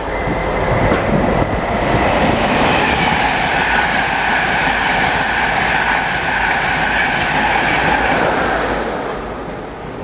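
InterCity 225 electric express train passing through at speed: a rushing roar of wheels on rail and air with a steady high whine. It builds over the first couple of seconds and fades away near the end as the train clears.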